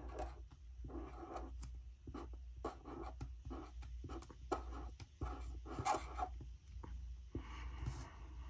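Tombow dual brush pen writing on planner paper: short, uneven scratchy strokes of the felt tip as letters are formed, over a steady low hum.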